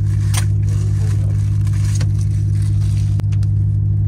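Volvo truck's diesel engine idling, heard inside the sleeper cab as a steady low hum. Short clicks and rustles come on top of it as the bunk's storage net and fittings are handled.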